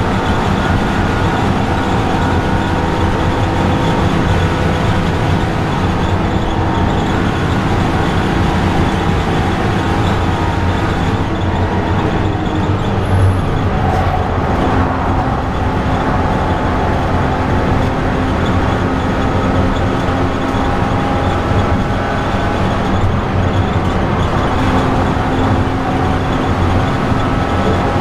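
BMW E90 330i's 3.0-litre straight-six engine under hard track driving, heard inside the cabin, its note rising and falling with the throttle, over steady road and tyre noise.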